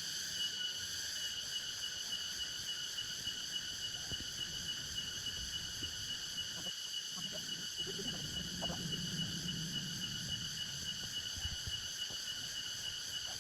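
Steady chorus of tropical forest insects, a continuous high-pitched whine with several layered tones. A few soft low sounds come in about halfway through.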